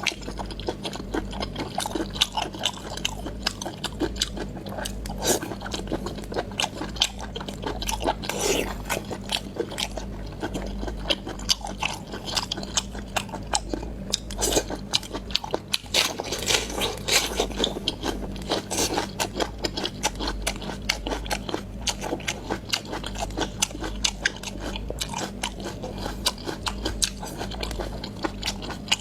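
Close-up chewing and biting of fish maw: a continuous run of irregular wet crunches and mouth clicks, with a steady low hum underneath.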